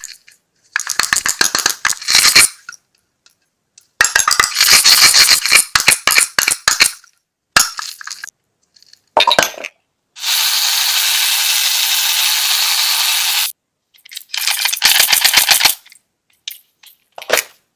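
Rapid, crisp crackling and clicking in several separate bursts with silent gaps, and a steady hiss lasting about three seconds in the middle.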